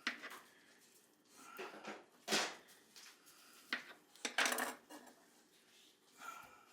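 Knife and kitchenware clatter while potatoes are cut up: about six separate knocks and clinks at irregular spacing, the loudest about two and a half seconds in.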